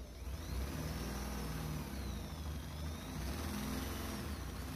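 Electric drill boring a hole through the car's sheet-metal boot lid, its pitch rising and falling as the motor's speed changes under load.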